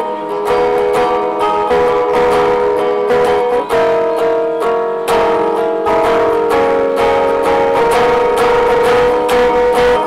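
Solo fingerstyle playing on a Gretsch hollow-body electric guitar: a plucked melody over chords, with the notes left to ring.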